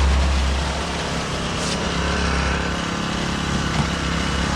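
Small gas engine of a motorized power wheelbarrow (concrete buggy) running steadily, its deep hum easing back about a second and a half in.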